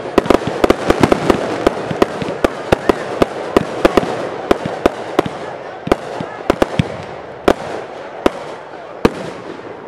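Aerial fireworks bursting in quick succession: a rapid, irregular string of sharp bangs over a dense crackling hiss, with the bangs thinning out and the crackle fading toward the end.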